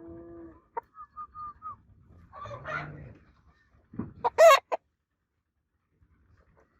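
Roosters calling: several short pitched calls and clucks, the loudest about four seconds in.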